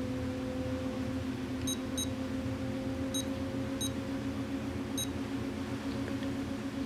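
Futaba 14SG transmitter giving five short, high key beeps as its cursor is stepped across the telemetry screen to the distance readout, over a steady low hum.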